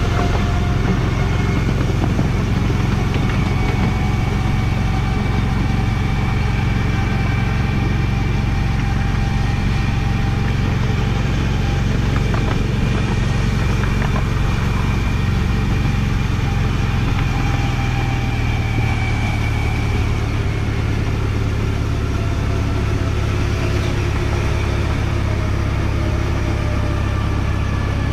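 Engine of a ride-on miniature railway locomotive running steadily as the train travels along the track, a constant low drone with faint whining tones that drift slowly up and down in pitch.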